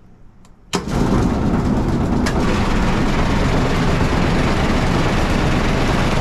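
Farm feed-loading machinery starts abruptly under a second in and runs loud and steady, a dense even rush over a low mechanical hum, as concentrate is fed into a mixer wagon.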